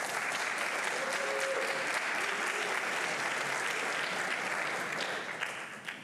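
Audience applauding, dying away near the end.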